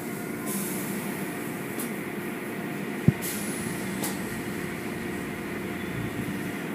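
Automatic tunnel car wash heard from inside the car: the wash machinery runs steadily while water sprays and cloth curtain strips swish over the car. A single sharp knock comes about three seconds in.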